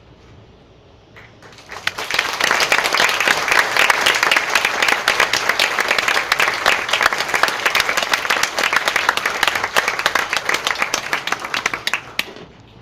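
Audience applauding: the clapping breaks out about two seconds in, stays loud and dense, and dies away near the end.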